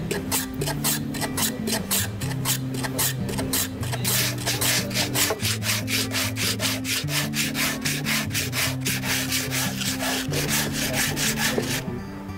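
Hand sanding of the face of a round wooden block, quick back-and-forth rubbing strokes at about four a second, smoothing the surface flat and even for a printing block. The strokes stop shortly before the end, with background music underneath.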